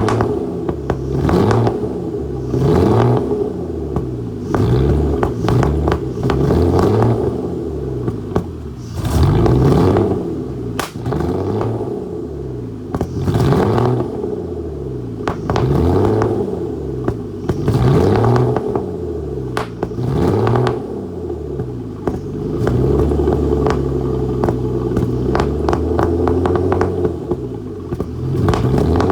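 Aston Martin DB9's V12 engine running rough on a misfire, blipped up and down about every two seconds, with a steadier stretch past the middle. Sharp pops and crackles come from the exhaust throughout.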